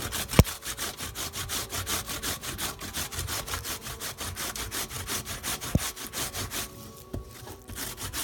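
Peeled green plantain being grated by hand on a metal grater laid flat: quick rhythmic scraping strokes, about five a second, with a brief pause about seven seconds in. A sharp knock sounds just after the start.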